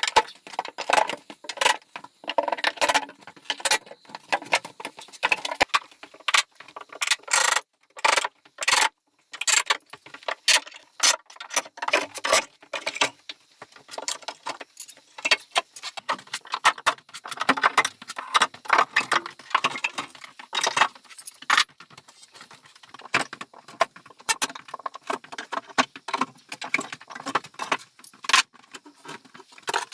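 Irregular knocking, clattering and metallic clinking of floorboards being pried up and lifted out of an old log-cabin floor.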